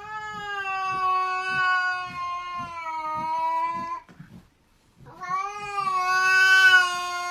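Cat yowling in two long, drawn-out calls, each about four seconds long and slightly falling in pitch, with the second call starting about five seconds in.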